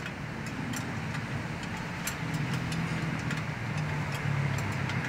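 Truck diesel engine running with a steady low rumble that swells slightly a couple of times, with scattered faint metallic ticks.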